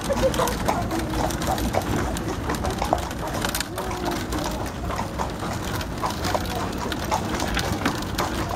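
Horse's hooves clip-clopping on a sealed road as it pulls a buggy, a quick run of irregular clicks over a steady low rumble.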